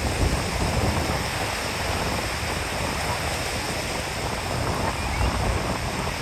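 North Sea surf breaking and washing onto the beach: a steady rushing, with an uneven low rumble of wind buffeting the microphone.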